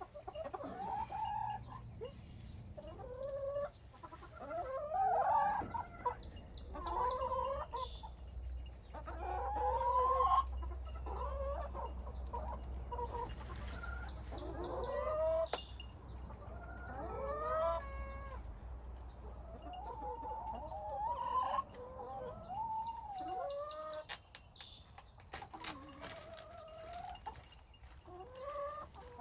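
Chickens clucking and calling over and over, with short rising and falling squawks throughout.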